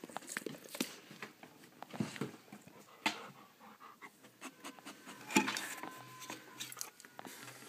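A dog breathing close against the microphone, with rustles and knocks as its fur and muzzle brush the phone, coming in irregular spurts.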